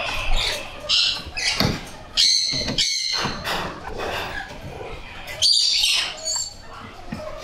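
A series of high-pitched, harsh animal calls with several overtones: a short one about a second in, a longer pair about two to three seconds in, and another near five and a half seconds.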